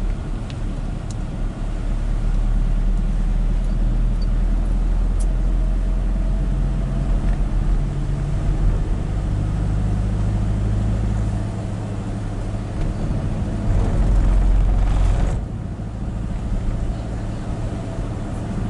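Inside a moving vehicle's cabin, a steady low engine hum and road noise on a wet road. A louder rush of noise about three-quarters of the way through stops suddenly.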